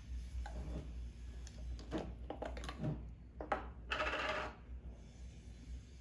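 Small hard objects clinking and tapping several times, with a short rushing noise about four seconds in, over a low steady hum.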